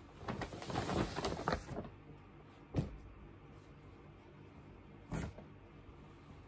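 Clothes and paper rustling as a pile shirt jacket is laid over a wool coat. The rustling lasts about a second and a half, followed by two short, sharp handling noises about three and five seconds in.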